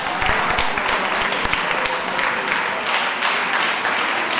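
Audience applauding: dense, steady clapping from a seated crowd in a hall.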